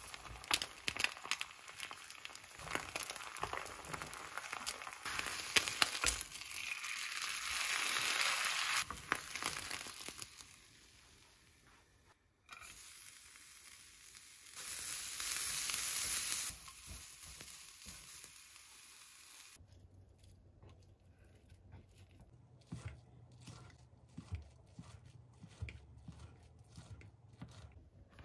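Egg sheet frying in a small square nonstick pan, sizzling with scrapes and taps of a spatula, then julienned carrots sizzling as they are stir-fried in the same pan. From about twenty seconds in, a string of short, sharp knife strokes as the egg sheet is sliced into thin strips on a cutting mat.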